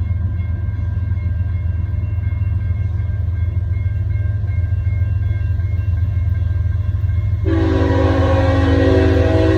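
Diesel-hauled double-stack freight train rumbling steadily and growing louder as it approaches. Near the end the locomotive's air horn starts to blow, one long held chord.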